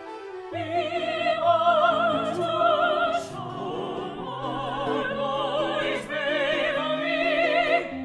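Operatic singing with a wide vibrato over orchestral accompaniment; the voice enters about half a second in and breaks off shortly before the end.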